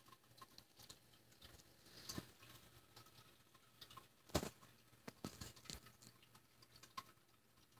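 Faint, scattered rustles and clicks of a pet mouse moving through wood-shaving bedding, with a sharper click about four and a half seconds in.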